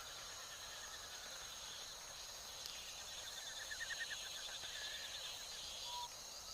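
Natural wildlife ambience of insects droning high and steady, with a rapid chirping trill coming in for a second or two near the middle.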